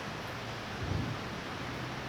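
Steady hiss of heavy rain in a thunderstorm, with a short low rumble about a second in.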